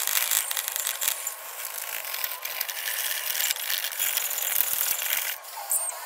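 Sandpaper rubbed by hand over a thin sheet-steel computer power-supply case cover, making a dry rasping scratch with each stroke. The sanding stops about five seconds in, and a few short high chirps follow.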